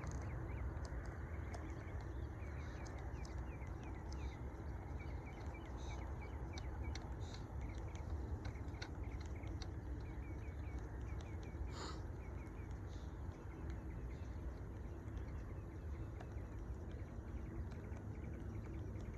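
Outdoor ambience: a steady low rumble of wind-like noise, with many faint, quick bird chirps repeating throughout.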